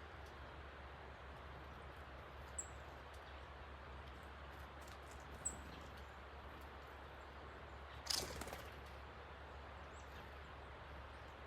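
Steady rushing of a creek swollen by heavy rain, with two short high bird chirps a few seconds apart and a brief, louder burst of noise about eight seconds in.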